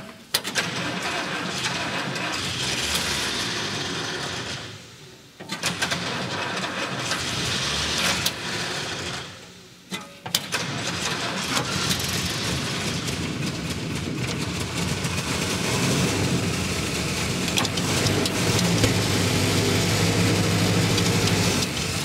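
Old Jeep's carburetted petrol engine being started after years unused, fed petrol straight into the carburettor because its diaphragm fuel pump delivers too little. It twice sags away and picks up again in the first ten seconds, then runs steadily.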